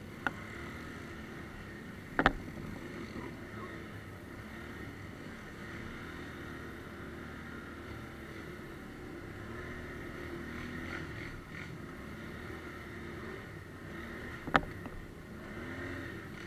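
ATV engine running as it rides along a dirt trail, its pitch rising and falling with the throttle. There is a sharp knock about two seconds in and another near the end.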